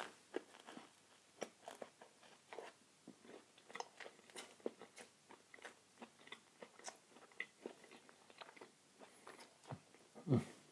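A person chewing food close to the microphone: irregular moist clicks and crunches of biting and chewing. There is a low thump near the end.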